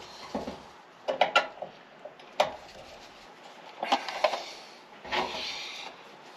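Scattered knocks and clicks of tools and parts being handled, with a short noisy burst about five seconds in.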